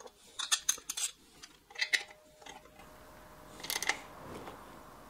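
A ratchet wrench and metal tools clicking and clinking in short irregular bursts, with a quick run of clicks near the end, as the clutch release fork's pivot stud is screwed into the aluminium bellhousing of a Porsche transaxle.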